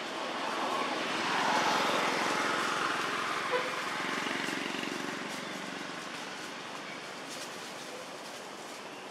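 A vehicle passing by: a broad rushing noise that swells over the first couple of seconds, then slowly fades away. A single short click sounds about three and a half seconds in.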